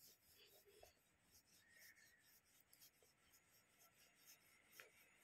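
Near silence, with a few faint clicks.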